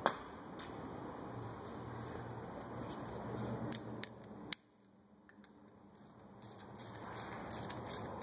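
Faint workshop background noise with a few sharp clicks, the loudest just at the start. About halfway through the sound drops out and then slowly fades back in.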